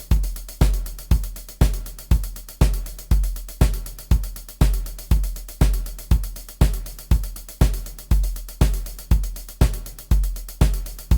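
MIDI drum kit playing a steady beat, a heavy bass drum on every beat about twice a second, each hit topped with a sharp high stroke.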